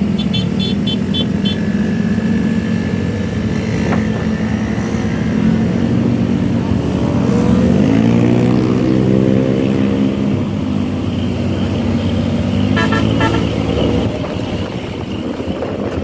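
Bus engines running on the road, with a bus horn giving a quick run of about six short toots at the start and another short burst of toots about thirteen seconds in. Around the middle an engine note rises and then falls in pitch.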